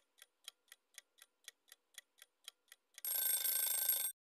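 Countdown-timer sound effect: a clock ticking evenly about four times a second, then about three seconds in a loud alarm ring that lasts about a second and cuts off sharply as the time runs out.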